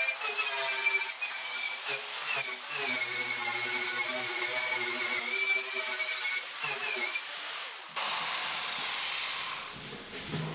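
Angle grinder with a twisted-wire wheel brushing sheet steel down to bare metal. The motor whine wavers in pitch as the wheel is pressed on and eased off. The grinder is switched off about eight seconds in and winds down with a falling whine.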